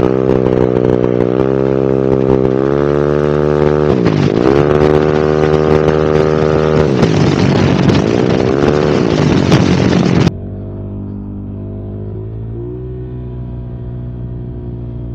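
Motorcycle engine through a JVT V4 teardrop aftermarket exhaust, accelerating hard through the gears: the note climbs, dips at each shift, and climbs again about three times. About ten seconds in it drops abruptly to a quieter, steady lower note.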